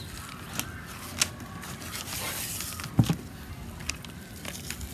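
Gloved hands handling a rack of raw pork back ribs on butcher paper while the membrane is peeled off: paper rustling and crinkling, a few small clicks, and a dull thump about three seconds in.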